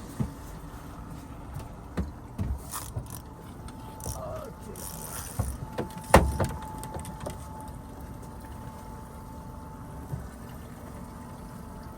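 Sharp knocks and thumps on a fishing boat over a steady low rumble, the loudest about six seconds in. A thin steady tone sounds through the middle.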